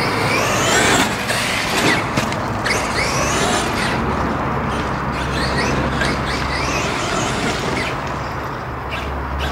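Radio-controlled off-road car's motor on a dirt track, its pitch rising again and again as it accelerates out of corners, over a steady low hum.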